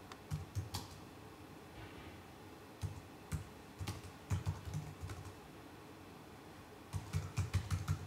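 Computer keyboard being typed on in short bursts of keystrokes, a word at a time, with pauses between the bursts.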